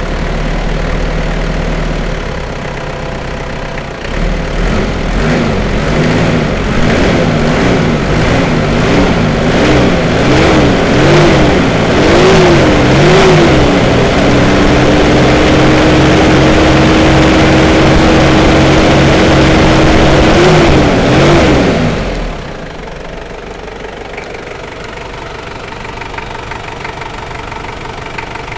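Toyota 1KZ-T 3.0-litre four-cylinder turbo-diesel, a new engine that the owner says makes a noise, idling, then revved in a run of quick blips that climb higher, held at high revs for about six seconds, blipped twice more and let drop back to idle about 22 seconds in.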